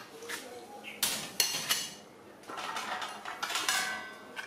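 Stainless steel trays and bowls clattering and clinking against each other as they are handled and stacked, in two spells with short metallic rings.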